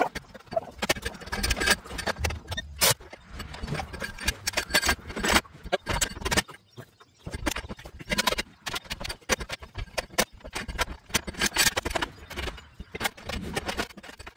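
Irregular clanking and knocking of a pipe wrench and a dead-blow hammer on a square-body Chevy pickup's exhaust pipe, many sharp blows in quick succession as the pipe section is worked loose from its joint.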